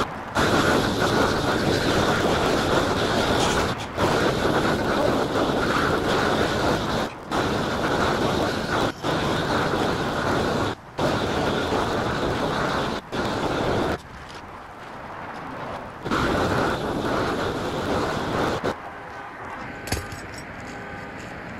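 A roofing blowtorch roaring steadily as it heats rubber modified torch-down membrane, cut off briefly several times and for a longer pause partway through, then shut off about 19 s in. A single knock follows about a second later.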